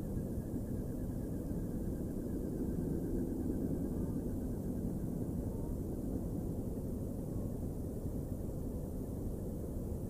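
Steady low outdoor rumble over open river ice, with faint warbling calls high above it during the first few seconds.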